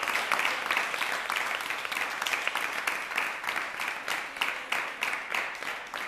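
A small group clapping by hand in applause, a dense patter of claps that slowly tapers off.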